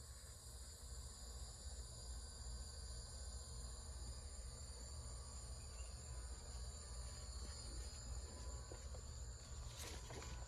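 Crickets trilling steadily in a faint, high-pitched chorus over a low rumble, with a brief rustle just before the end.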